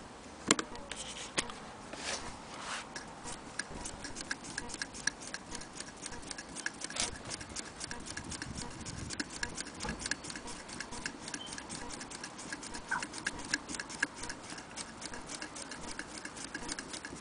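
Willcox & Gibbs sewing machine mechanism being turned over, making a steady, rapid mechanical ticking of several clicks a second, with a sharp knock about half a second in.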